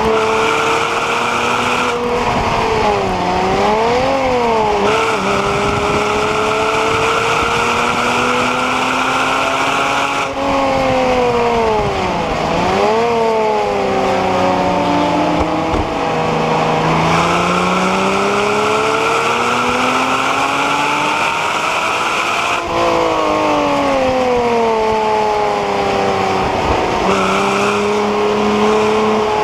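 Porsche Cayman 987's 2.9-litre flat-six engine driven hard on track. The revs climb in long pulls through the gears and drop sharply at each shift. Twice, under braking, there is a quick run of up-and-down rev blips on the downshifts.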